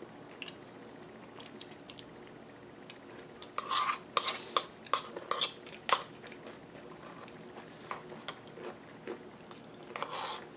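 Chewing yogurt and granola, with a metal spoon scraping and clinking in the bowl: a run of sharp clinks from about three and a half to six seconds in, and a few more near the end.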